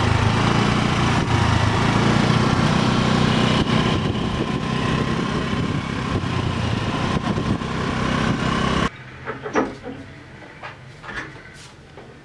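Small scooter engine running steadily while riding, with wind rush. About 9 seconds in it cuts off abruptly to a much quieter stretch holding a few short squeaks and a soft knock.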